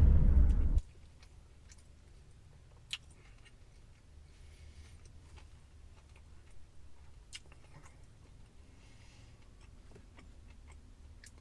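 A loud noise burst that dies away within the first second, then faint chewing with a few soft clicks as a person eats a breaded chicken sandwich.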